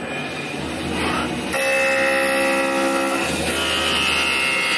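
Wood handle lathe machine running and cutting a wooden handle, a high steady whine setting in about a second and a half in and holding.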